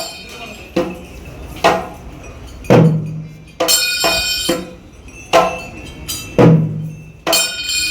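Festival percussion: loud drum strikes about once a second, each leaving a low ring, with cymbals clashing and ringing over them.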